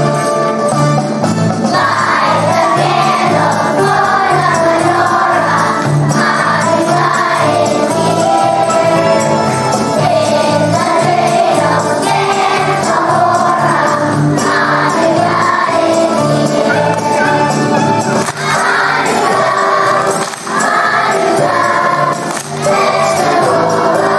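A choir of young schoolchildren singing a holiday song together over instrumental accompaniment with a steady bass beat. The voices come in about two seconds in, after an instrumental lead-in.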